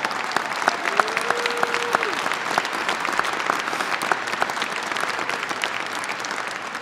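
Crowd applauding, a dense patter of hand claps that starts to die down near the end.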